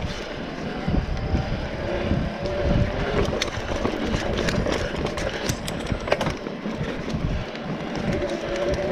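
Mountain bike rolling fast down a rough dirt singletrack: tyres running over dirt, rocks and roots, with the bike clattering and rattling at each bump. Wind rumbles on the microphone.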